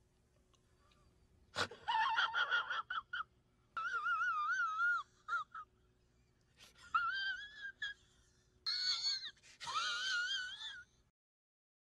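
A man's high-pitched, wavering falsetto squeal in about five short bursts, with a wobble in the pitch, like a wheezy whine. A sharp click comes just before the first burst.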